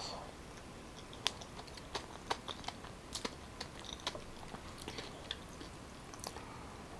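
A person chewing a mouthful of soft boiled purple yam: a run of irregular sharp mouth clicks and smacks from about a second in until near the end.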